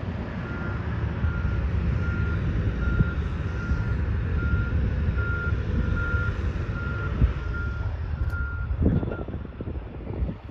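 A vehicle backup alarm gives a steady run of evenly spaced single-pitch beeps that stop near the end, over wind buffeting the microphone.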